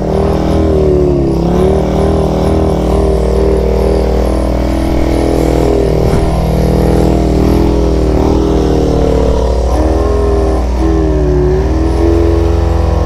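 Vintage 1970s Arctic Cat snowmobile two-stroke engines idling, the pitch wavering up and down unevenly.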